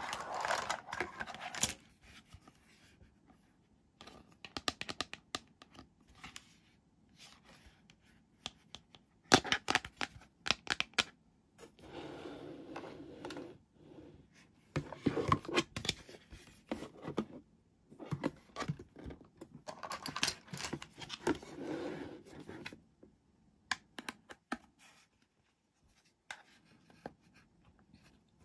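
Hard plastic toy doctor-kit pieces being handled, with irregular clicks and clacks as parts are picked up, set down and fitted together, and longer scraping, rustling stretches between them.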